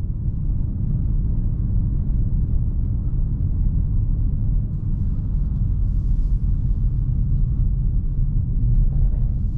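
CAOA Chery Tiggo 8 Founder's Edition SUV on the move, its 1.6-litre petrol engine and the road making a steady low rumble.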